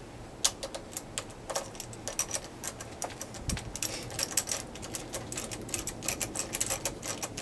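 Runs of quick, sharp clicks from a socket ratchet as the brake lever's pivot bolt is unscrewed. The clicks come thicker in the second half.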